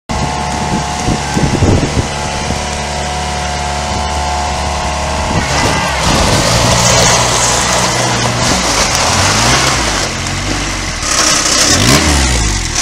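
Engine of a Glencoe Scot Trak 8x8 UTV running as the vehicle drives, its pitch rising and falling with engine speed through the second half, over outdoor wind noise.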